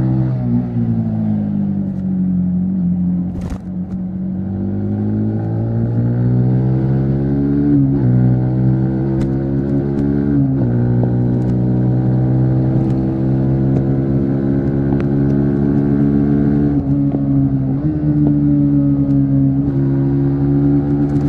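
Yamaha MT-15 V3's single-cylinder engine and exhaust on the move. The revs fall at first, then climb again through the gears, with the pitch dropping sharply at each upshift. A sharp click comes a few seconds in, and a steady low rumble of wind and road runs underneath.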